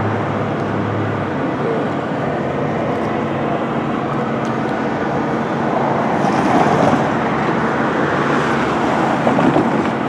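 Road traffic passing on the street beside a railroad crossing: a steady wash of tyre and engine noise, with a low engine hum in the first second and a vehicle passing a little louder about six to seven seconds in.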